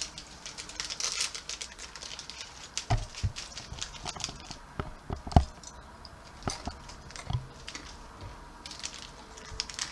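Plastic snack packet of dry roasted peanuts crinkling as it is torn open and handled, then scattered small clicks and knocks as peanuts are shaken out of it into a hand, with one louder knock about five seconds in.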